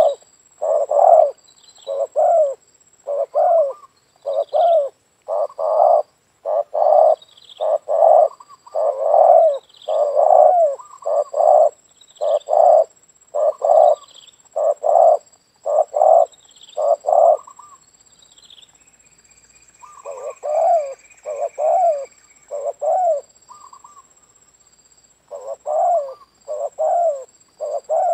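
Spotted dove cooing: a long run of short, evenly repeated coos, a little over one a second, with a pause of a couple of seconds about two-thirds of the way through before the cooing resumes.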